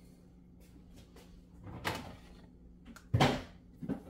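A spoon scraping thick blended chutney out of a blender cup, then two sharp knocks near the end as the upturned cup is tapped against the tub to empty it.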